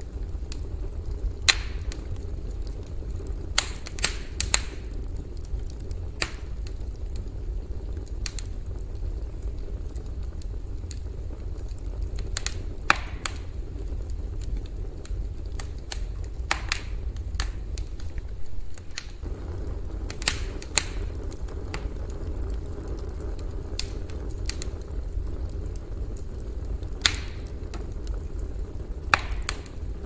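Campfire burning with a steady low rumble, broken by about a dozen sharp, irregular crackles and pops from the burning wood.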